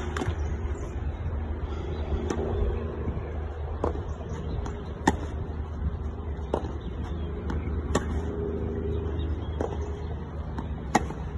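Tennis racquets striking the ball back and forth in a baseline rally, one crisp hit about every one and a half seconds, the nearer player's shots louder than the far player's, over a steady low rumble.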